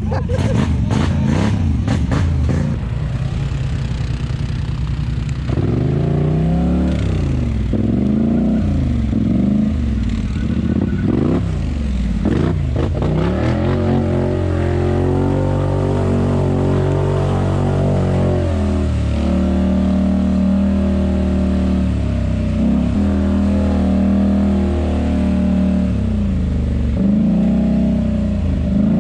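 Polaris ATV engine revving up and down repeatedly under throttle while working through rough mud trail, with a cluster of sharp clattering knocks in the first few seconds.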